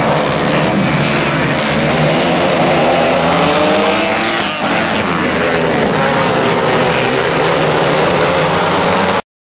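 Several small winged dirt-track sprint cars racing, their engines running hard at high revs with overlapping pitches that shift as the cars pass. The sound cuts off abruptly near the end.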